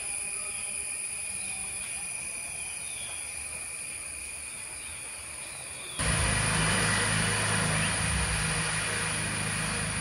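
Steady high-pitched drone of an insect chorus with a few faint chirps. About six seconds in, the sound cuts abruptly to a louder rushing noise with a low hum underneath, while the insect drone carries on.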